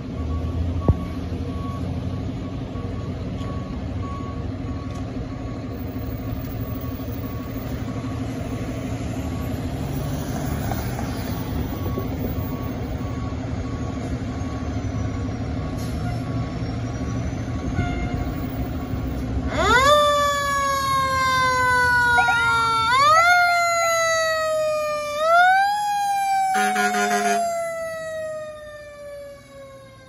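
A fire engine's diesel engine rumbles steadily as it pulls out of the station, with a faint repeating beep. About two-thirds of the way in, its siren starts: quick rising whoops that fall slowly. A short horn blast follows, and the siren then trails off as the truck moves away.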